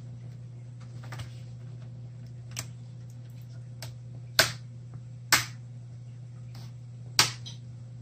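Plastic clips of a laptop's screen bezel snapping loose as they are pried apart with fingernails: a handful of sharp clicks, the three loudest in the second half, over a low steady hum.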